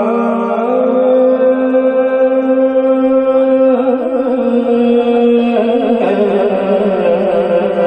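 A man singing a Punjabi naat, a devotional poem in praise of the Prophet, drawing out long held notes, the first lasting about three seconds, before the melody moves on.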